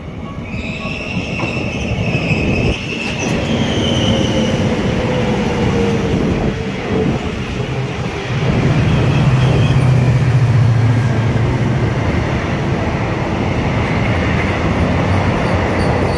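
Korail Class 311000 electric multiple unit pulling into a station and passing at close range. The rumble of its wheels on the rails grows loud in the first few seconds, with a high squeal early on and a whine that falls in pitch as the train slows.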